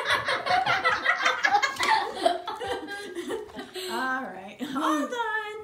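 Human laughter: a run of quick chuckles, then a few longer drawn-out laughing sounds near the end.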